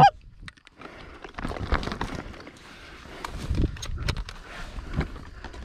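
Rustling and light knocks of hunters shifting in grass-covered layout blinds on wheat stubble, with a faint steady insect chirring underneath. A single short honk, rising sharply in pitch, sounds right at the start.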